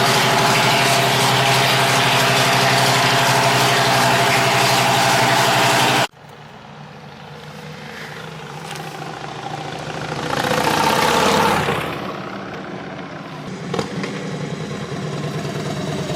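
Motorcycle engine running steadily while it warms up on fresh oil, a check for leaks after a rebuild. It cuts off abruptly about six seconds in; quieter, rising sounds follow, with a swell near eleven seconds and a low engine hum building toward the end.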